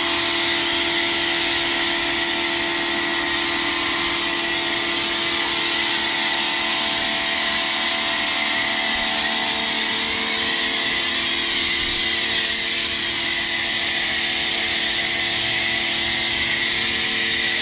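Pressure washer running steadily, its motor and pump humming under a loud, even hiss of water and soap spraying from a foam cannon.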